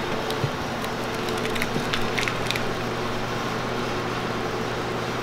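Steady machine hum with a low, even tone. A few light ticks and rustles come about two seconds in, from hands working on the decal.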